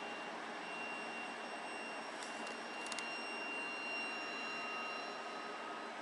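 The 1911 SS Chief Wawatam's forward triple-expansion steam engine turning over: a steady mechanical rush with a faint thin high whine, and a few light clicks between two and three seconds in.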